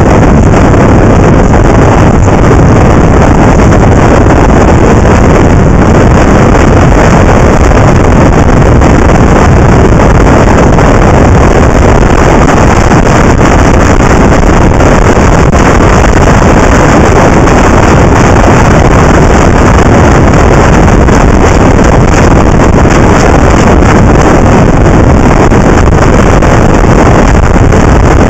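Wind rushing over the microphone of a camera mounted on a moving motorcycle: a loud, steady rush that covers everything else.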